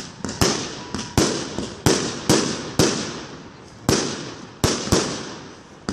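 Aerial fireworks going off: about a dozen sharp bangs of small shells bursting in quick, uneven succession, each one dying away over a fraction of a second.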